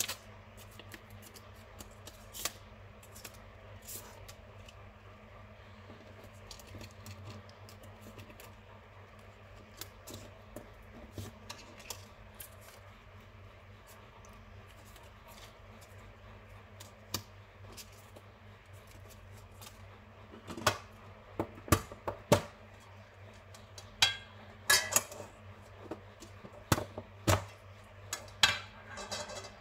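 Unboxing handling noise: soft rustling of cardboard and paper cards, then from about twenty seconds in a run of sharp clicks and crinkles from small wrapped vitamin-C powder sachets and heart-shaped metal tins being handled. A low steady hum lies underneath.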